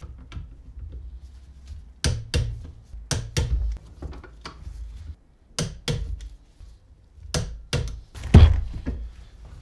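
Torque wrench with a 6 mm Allen bit tightening the split caliper's bolts to 24 Nm: sharp clicks and knocks in clusters of two or three, the loudest near the end.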